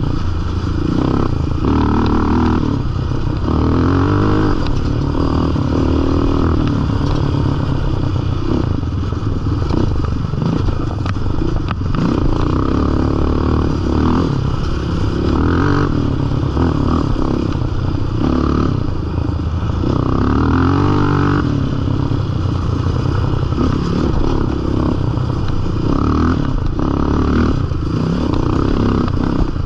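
Yamaha Raptor sport quad's single-cylinder four-stroke engine running as it is ridden along a rough dirt trail, its pitch rising and falling again and again as the throttle is opened and eased off, with some clattering of the machine over the bumps.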